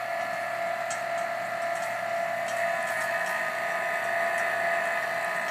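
Steady hum and whine of the vacuum pump and high-voltage transformer running a homemade cathode ray tube, with a few faint ticks.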